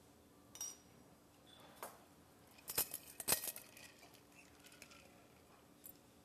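A few light clinks and taps of a stainless steel cocktail mixing tin and bar strainer being handled, the loudest pair about three seconds in.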